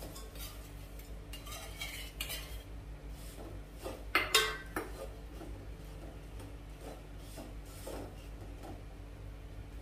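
Steel spoon scraping and clinking against a metal pot, stirring lumps of jaggery into melted ghee. A few sharp clinks just after four seconds in are the loudest.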